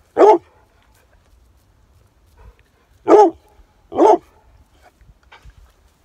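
A bird dog barking three times: one bark right at the start, then two more about three seconds later, a second apart.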